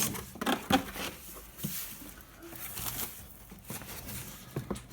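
Cardboard box and packaging being opened and handled: rustling with a scatter of light knocks and clicks, the sharpest about a second in.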